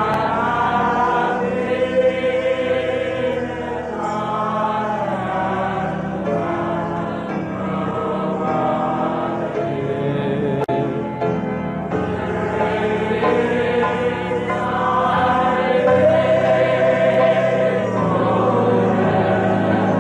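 Many voices singing together in long held notes over a steady low accompaniment.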